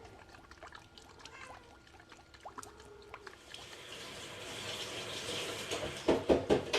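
Mesquite liquid smoke being poured from its bottle into the sausage mixture, a rising hiss of liquid, followed near the end by a quick run of four or five knocks.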